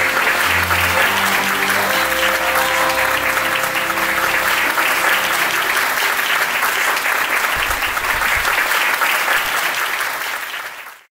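Audience applauding steadily, with background music of held notes under it that fades out about halfway through. The applause then fades to silence near the end.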